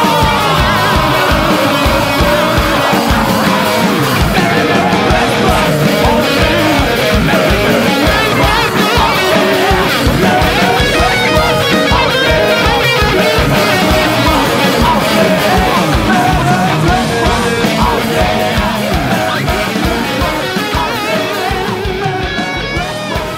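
Pop-punk band playing an instrumental passage with electric guitars and drums at an even beat. The music begins to fade out near the end.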